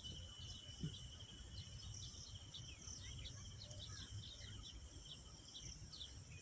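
Faint outdoor ambience of many short, high chirps with a thin steady high tone through the first part, over a low background rumble.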